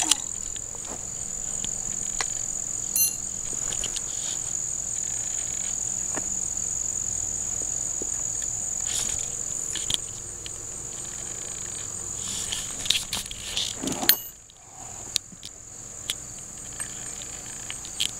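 Steady high-pitched trill of insects in the grass, with scattered knocks and rustles of the camera being handled. About fourteen seconds in, all the sound briefly goes muffled for a second or so.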